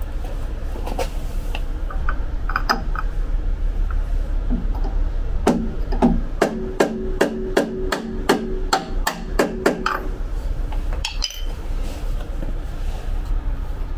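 Hammer blows on a metal drift driving a bearing into the steel caster-fork housing tube of a power wheelchair: a few light taps, then about five seconds in a quick run of about a dozen ringing metallic strikes, about three a second.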